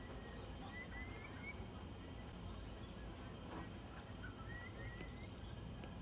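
Faint bird chirps, short rising notes in small groups every second or two, over a low steady background rumble.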